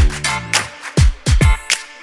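Background music with a funky groove: punchy kick and snare hits over a bass line and held synth notes.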